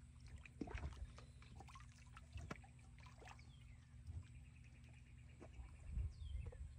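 Pool water sloshing and lapping quietly around a big cat wading through it, with a few small splashes.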